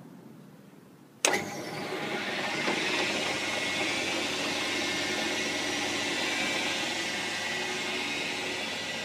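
Chester combination lathe-mill switched on: a sharp clunk about a second in, then the electric motor spins the chuck up within a second or so and runs steadily with a high whine.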